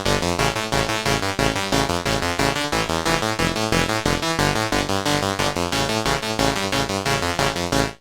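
Sequential Prophet-6 analog synthesizer playing a dry, sequenced FM patch, with oscillator 2 modulating at audio rate through the Poly Mod section. A fast, even run of notes over a deep bass pulse cuts off suddenly near the end.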